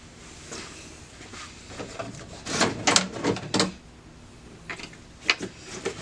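Clunks and rattles of car body parts being worked loose and handled during front-end removal: a cluster of knocks about two and a half to three and a half seconds in, and a single sharp knock about five seconds in.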